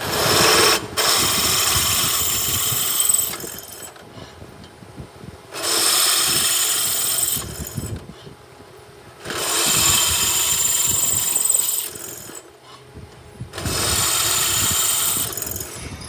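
Pillar drill press boring holes through a metal brake disc. There are four loud spells of grinding, hissing cutting, each lasting two to three seconds, and between them the machine runs more quietly while the bit is lifted and the disc is turned to the next hole.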